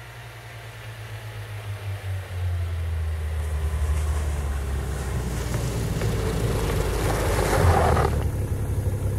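Ski-Doo Skandic SWT 900 ACE snowmobile engine (four-stroke three-cylinder) running as the machine drives toward the microphone. It grows louder over the first few seconds, then runs close and loud. Near the end the sound changes, with the engine still running steadily nearby.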